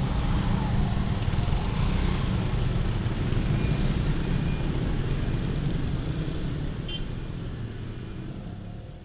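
Road traffic of motorcycles, scooters and a car driving over the level crossing, small engines running steadily and fading out over the last few seconds.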